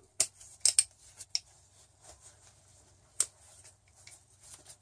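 A King Dick hand ratchet being worked by hand, giving a few separate sharp metal clicks spread out rather than a steady run. The ratchet is sticking and stiff.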